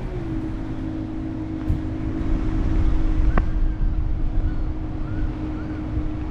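Wind rushing and buffeting over the microphone during a tow launch, with a steady engine drone underneath that dips slightly in pitch just after the start. A single sharp tick about three seconds in.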